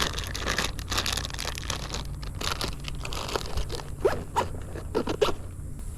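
Close rustling and crunching, with a few short squeaks partway through.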